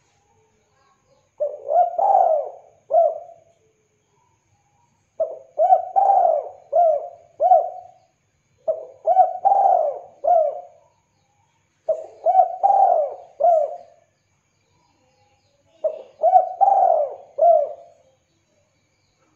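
Spotted dove cooing: five phrases of three or four coos each, repeated every three to four seconds.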